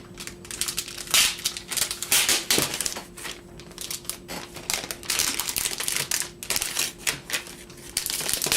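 Thin plastic wrapping crinkling and rustling in irregular bursts as it is peeled off a new keyboard by hand.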